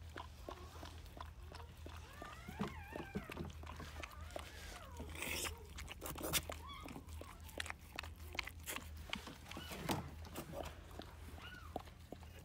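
Newborn Australian Shepherd puppies squeaking and crying in short, wavering high calls, twice in clusters, amid small wet clicks and a brief rustle of paper bedding in the whelping box.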